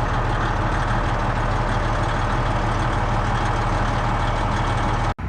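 A heavy engine idling steadily, which cuts off abruptly near the end.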